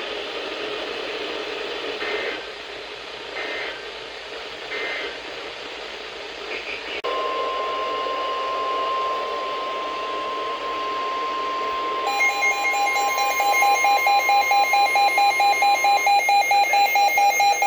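NOAA Weather Radio broadcast over radio static. Three short data bursts of the SAME alert header come first. About seven seconds in, the steady 1050 Hz warning alarm tone begins, which signals that a warning follows. About twelve seconds in, a weather radio receiver's alarm starts beeping rapidly, about four beeps a second, and keeps on after the steady tone stops.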